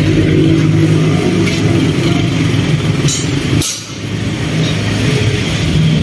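Bristol Venturi 500 motorcycle engine idling steadily through an aftermarket Akrapovic slip-on muffler. It dips briefly in level a little past halfway.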